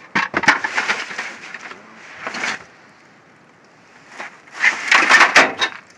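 Scrap pieces clattering and scraping as they are pulled out of a dumpster, in two bursts of knocks and bangs, the second near the end.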